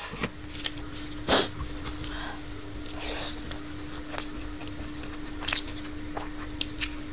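Fingers mixing rice and greens on a wooden tray: soft rustles and light clicks, with one louder rustle about a second in. A steady faint hum runs underneath.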